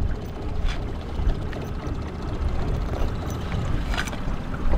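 Steady low rumble of a small inflatable dinghy under way on a river, with wind on the microphone and a few faint light clicks.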